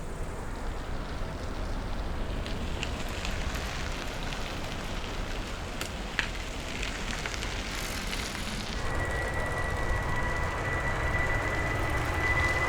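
Jet airliner engine noise: a broad, steady rumble that slowly grows louder, joined about nine seconds in by a steady high whine from the engines.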